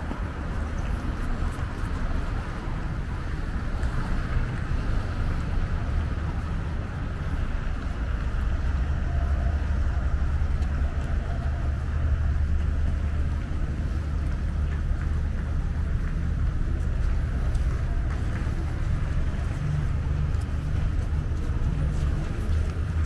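Steady low rumble of city street traffic, cars running along the road beside the pavement, growing a little louder over the first several seconds.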